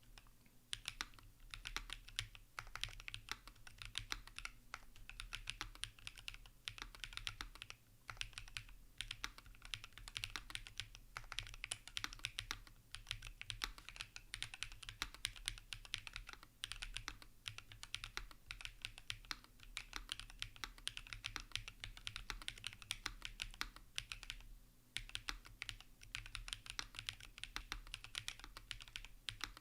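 Typing on a Tenet70 gasket-mount mechanical keyboard with an aluminium plate, plate and PCB foam, Bolsa Supply Zaku switches and CRP R5 keycaps: rapid, continuous keystrokes with short pauses between bursts.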